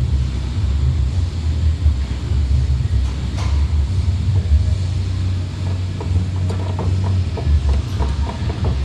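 Ram ProMaster van driving, a steady low rumble, with a quick run of light clicks in the second half.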